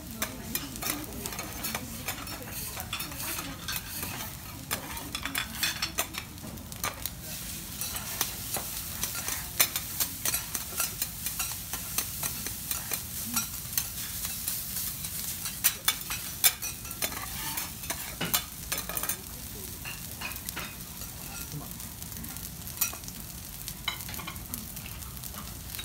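Garlic rice frying on a hot steel teppanyaki griddle, sizzling steadily, with rapid clacks and scrapes of metal spatulas chopping and turning the rice against the plate. The clacks grow sparse near the end.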